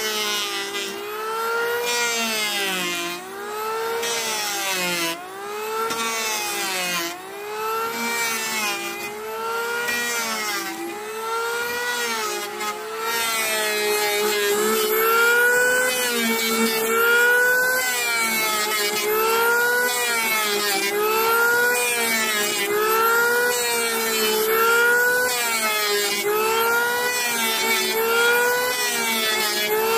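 Electric woodworking power tool motor running under load, its pitch dipping and recovering about every two seconds as it is pushed through wood in repeated strokes.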